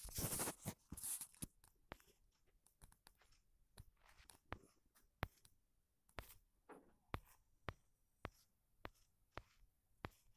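Faint handling noise: a short rustle at the start, then scattered sharp clicks and taps, about one or two a second.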